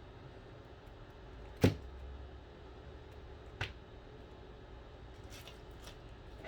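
Two sharp knocks over quiet room noise: a loud one about a second and a half in, and a softer one about two seconds later.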